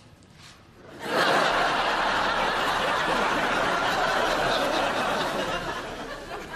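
Studio audience laughing: the laughter breaks out suddenly about a second in, holds as a dense, loud crowd laugh, and eases off near the end.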